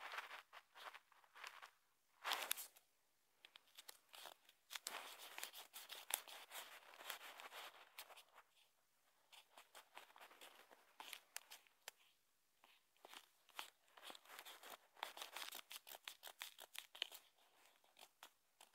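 Faint, irregular scratching and crackling handling noise from fingers rubbing and tapping on a phone's touchscreen, picked up by the phone's own microphone. It comes in stretches with short pauses.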